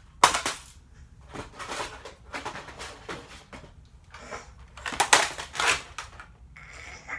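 Plastic toy guns clattering and scraping as they are rummaged through and picked up, in a series of irregular knocks and rustles, loudest about a quarter second in and again around five seconds in.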